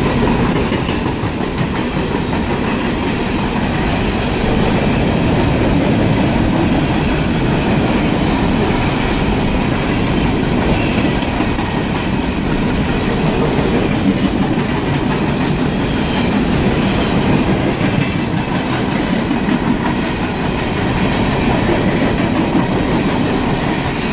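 Empty coal hopper cars rolling past: a steady rumble of steel wheels on the rails with continual clickety-clack and knocking over the rail joints.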